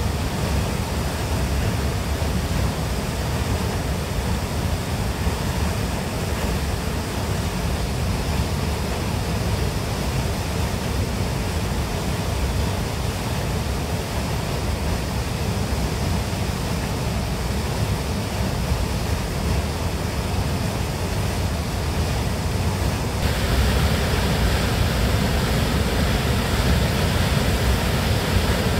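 Little Qualicum Falls in heavy flow, a steady rushing roar of water plunging through a narrow rock gorge. About 23 seconds in, the roar abruptly becomes brighter and a little louder.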